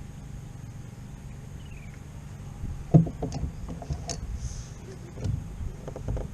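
Knocks and rattles of a Hobie Pro Angler pedal-drive fishing kayak under way over a steady low rumble: one loud sharp knock about three seconds in, then scattered lighter clicks and taps.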